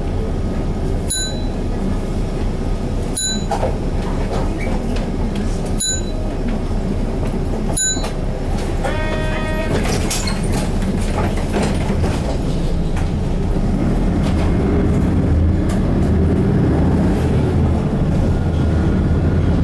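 Interior running sound of an Isuzu KC-LV380N one-step diesel city bus. The engine idles while the bus stands, with four short high pips about two seconds apart in the first half. In the last few seconds the engine pulls harder and gets louder as the bus moves off.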